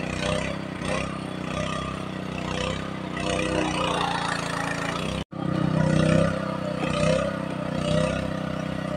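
Engine of a water pump running steadily at a constant speed, draining the pond. The sound cuts out for a split second a little past halfway.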